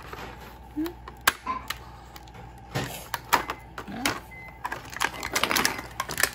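Irregular clicks and taps of small plastic toy pieces and a cardboard box insert being handled.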